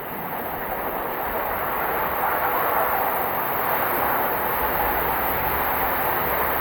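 A pipe valve opened, giving a steady rushing hiss of flow that builds over the first couple of seconds and then holds steady.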